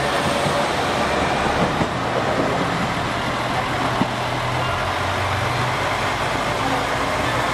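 Diesel engines of JR Shikoku 2000-series tilting express DMUs running at the station, a steady low drone with two small knocks, one about two seconds in and one about four seconds in.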